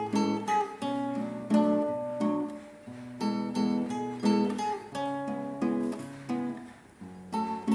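Background music of a strummed acoustic guitar playing chords in a steady rhythm.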